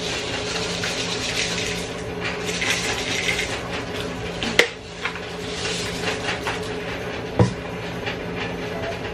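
Liquid laundry detergent poured from a plastic bottle into its measuring cap, with two sharp plastic clicks a few seconds apart over a steady low hum.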